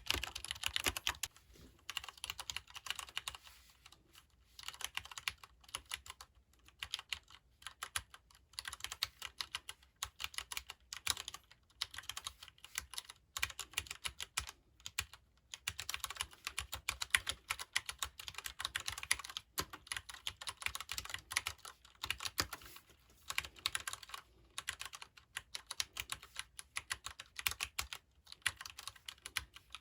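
Typing on a Leopold FC750R PD mechanical keyboard with Cherry MX Brown switches, which are tactile and non-clicky. Keystrokes come in quick, irregular runs broken by brief pauses.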